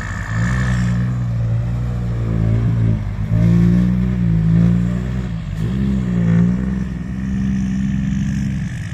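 Kubota M6240 tractor's diesel engine working hard, its pitch dipping under load and picking back up several times.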